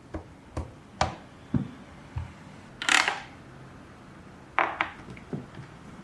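Irregular knocks and clicks of small hard objects being handled, about eight in all, with a short scrape or rustle about three seconds in.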